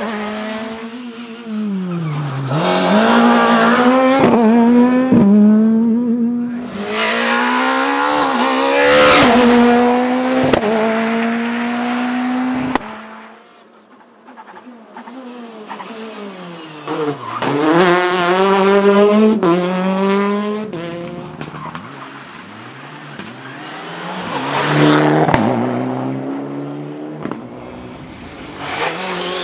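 Rally cars passing one after another at full throttle. Each engine revs high, then drops sharply on gear changes and braking before climbing again. The sound cuts off suddenly about halfway through, then a new car is heard.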